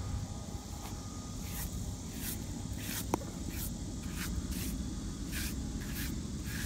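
Quick brushing swishes, about one every half second, of a hand sweeping dry grass clippings off a flat granite grave marker, with one sharp click near the middle, over a steady low rumble.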